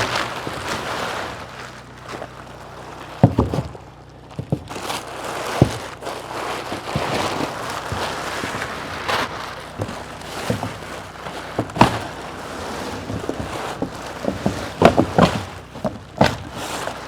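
Plastic tarp rustling as it is handled, with scattered knocks and thumps.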